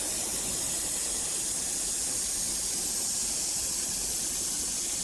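Steady, unbroken spray hiss of paint being sprayed onto metal.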